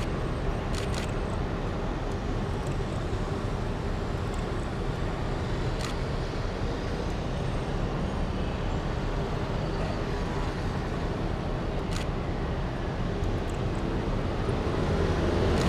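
Steady urban road traffic noise from a street where scooters, cars and city buses sit idling at a red light, with a few brief sharp clicks. It grows a little louder near the end.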